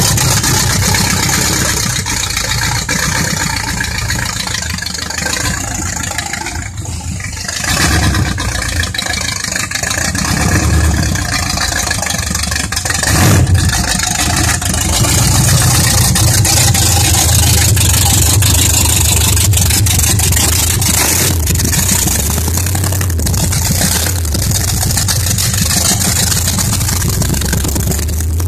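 1969 Chevrolet Camaro's V8 engine running as the car drives along the street, a little quieter a few seconds in, then louder again with brief revs.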